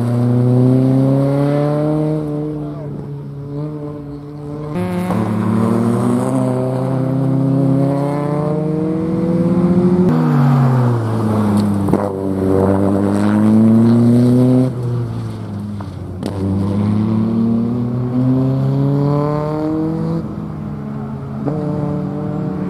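Small hatchback's petrol engine pulling hard through a slalom course. Its pitch climbs over several seconds in four or five long pulls, each followed by a drop as the driver lifts off or shifts, with a sudden fall about five seconds in and another near fifteen seconds.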